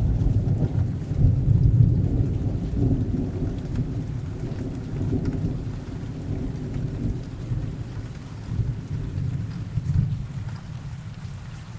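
Rain sound effect: steady rain with a long roll of low thunder rumbling in waves, fading away near the end.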